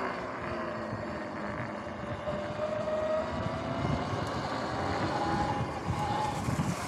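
Electric dirt bike being ridden: a faint electric motor whine that shifts up in pitch with speed, under steady tyre and wind noise on the microphone.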